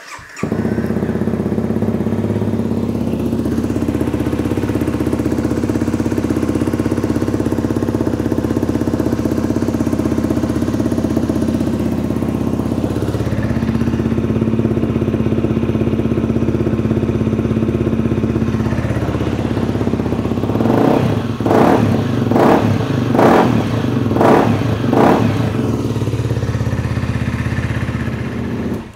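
Honda CRF250L's 250 cc single-cylinder engine running at idle, just refilled with oil after an oil and filter change and run to fill the new filter and check for leaks. About three-quarters of the way through, the note turns into a run of sharp, evenly spaced pulses for a few seconds. The engine cuts off just before the end.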